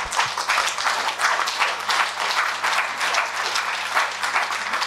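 Audience applauding, with dense, steady clapping from many hands.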